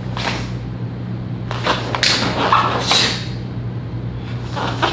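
Karate gi sleeves and jacket swishing and snapping with each sharp hand technique during a kata: a handful of quick, sharp swishes spaced about a second apart, over a steady low hum.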